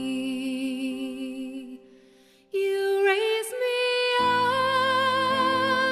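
Slow, gentle song: a long held note with vibrato fades out to a brief near-silent pause about two seconds in. Sustained tones then come back, with a low bass joining about four seconds in.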